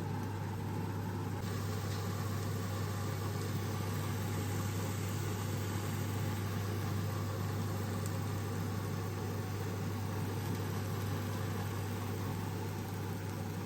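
Steady motor hum with an even rushing noise, unchanging throughout.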